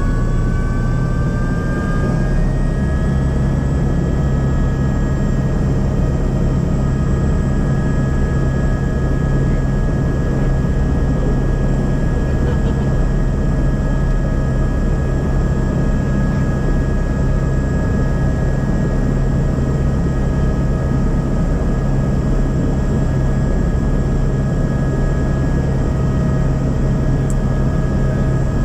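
Helicopter engine and rotor noise, loud and steady, with a high whine that rises in pitch over the first couple of seconds and then holds level.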